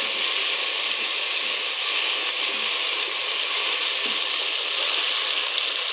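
Chopped onions and ginger paste sizzling steadily in hot oil in an aluminium pot.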